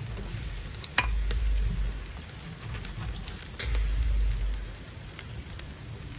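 Lamb chops and chicken sizzling on a charcoal grill grate, with scattered small crackles. A sharp click about a second in, and two spells of low wind rumble on the microphone.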